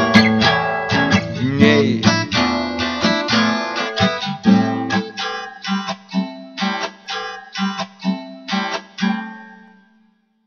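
Acoustic guitar playing the closing bars of a song, picked and strummed notes that grow softer and sparser before a last note rings out and fades about ten seconds in.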